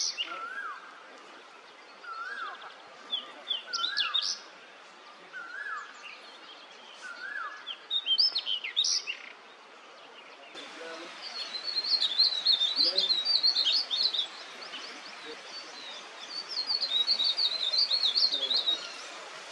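Male pied bushchat singing a short song phrase over and over, about every second and a half. About ten seconds in, the song gives way to a verditer flycatcher's long, high twittering warble in two bouts.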